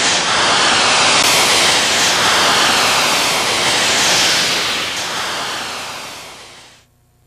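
A loud, steady rush of hiss-like noise with slow sweeping shifts in tone, fading away over the last two seconds or so.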